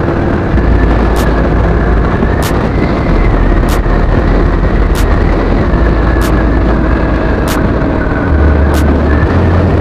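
Heavy wind buffeting on the microphone of a moving motor scooter, over road and engine noise with a faint steady whine. A sharp click repeats about every one and a quarter seconds.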